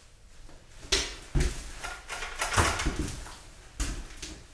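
Several separate knocks and thumps about a second apart, the heaviest a dull thump about a second and a half in, with fainter rustling between them.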